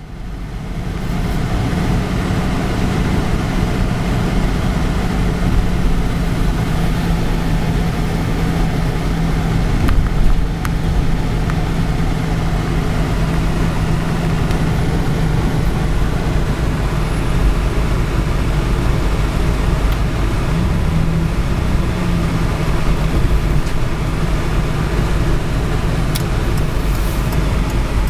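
Car driving, its engine and road noise heard steadily from inside the cabin, with a low hum running underneath.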